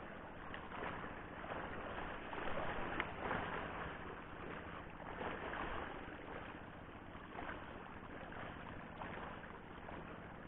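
Small sea waves lapping and washing against rocks, an uneven rushing that swells and falls back every second or so.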